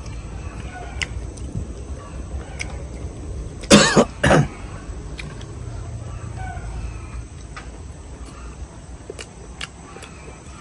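A chicken gives two short, loud squawking calls in quick succession about four seconds in. Faint clicks sound now and then over a low steady background.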